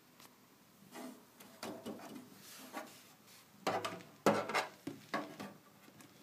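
A string of knocks, clicks and rubbing on an old beige plastic PC tower case as it is handled, loudest in a cluster of sharp knocks about four seconds in, when a finger presses at the front panel.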